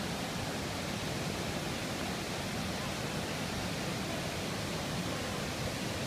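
Steady rush of water spilling over low cascades into a pool, an even wash of noise that does not change.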